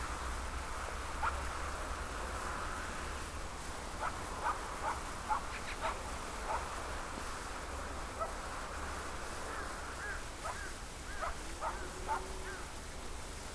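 Outdoor ambience with scattered short chirping calls, in small groups a few seconds in and again towards the end, over a steady low background rumble.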